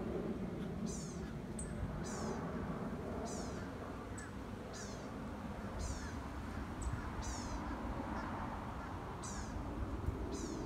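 A hawk calling from a tree: a high, downward-sliding call repeated every second or so.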